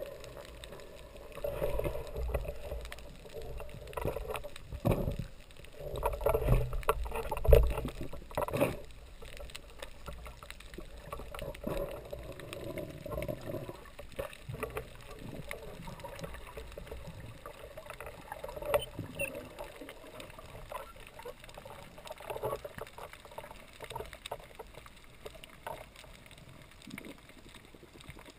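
Underwater sound heard through a GoPro camera's waterproof housing: muffled rushing and knocks of moving water, loudest in the first nine seconds, then fainter scattered clicks.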